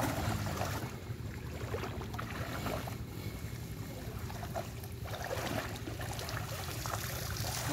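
Water sloshing and splashing as people wade through a shallow stream, dragging a fishing net, over a steady low rumble of wind on the microphone.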